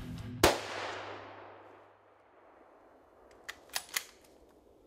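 A single hunting-rifle shot about half a second in, very loud, with an echo that dies away over about a second and a half. About three seconds later come three quick sharp clicks, a quarter second apart.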